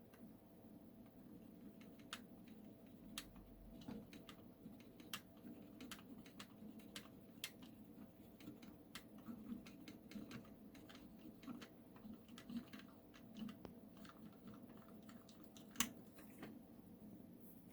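Faint, scattered light clicks and taps from handling the plastic parts of an opened TV remote control, one of them louder about sixteen seconds in, over a low steady hum.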